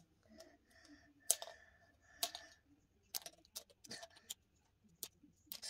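Small plastic toy parts clicking and tapping as they are handled and fitted together, about eight sharp, irregular clicks with faint rustling between them.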